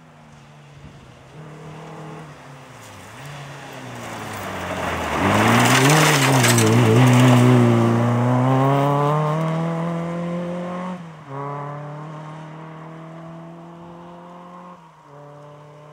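Fiat Cinquecento rally car accelerating hard past, with a loud rush of tyre and road noise as it goes by. It then pulls away, changing up twice as the engine note fades.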